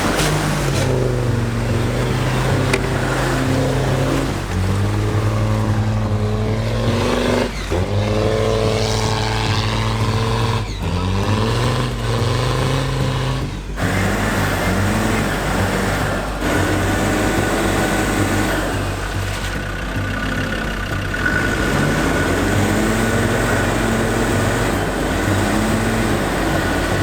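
A 4x4's engine revving under load off-road, its pitch holding then rising and falling again and again as the throttle is worked.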